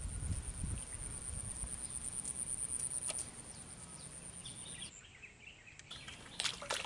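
Quiet pond-side ambience: a steady high-pitched insect buzz with a few faint bird chirps, and a low rumble in the first second or two. A few sharp splashes start just before the end.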